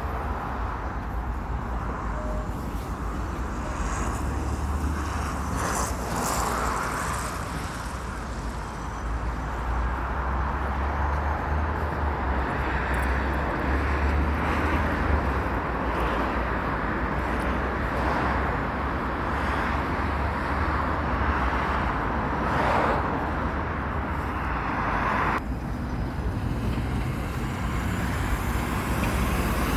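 Road traffic noise: a steady wash of passing vehicles with a low rumble, swelling and fading as they go by.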